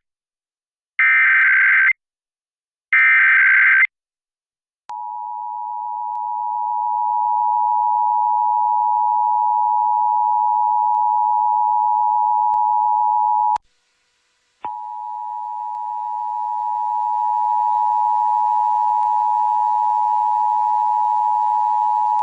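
Emergency Alert System monthly test tones off the radio. First come the last two one-second bursts of the warbling SAME digital header. Then comes the steady two-tone attention signal, which swells in level over its first few seconds, cuts out for about a second and starts again.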